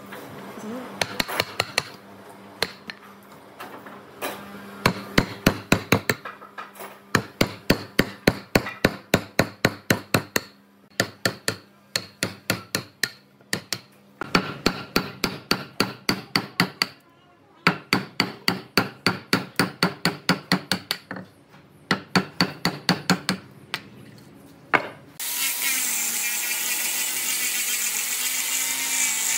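Rapid sharp knocks, about four a second in bursts with short pauses, as a hatchet chops and a wooden mallet drives a chisel into the end of a wooden post. About 25 seconds in, an angle grinder with a sanding disc starts and runs steadily, sanding the wood.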